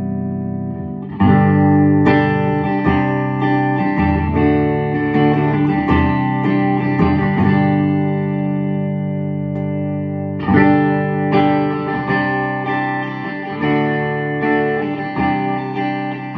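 Electric guitar played through a 1960s Stevens Bass Amp, a hand-wired all-valve Fender Bassman clone with four 6L6 power valves and a cabinet of six 10-inch Audax speakers. A chord is ringing, then strummed chords and picked notes start about a second in, with another run of strums about ten seconds in.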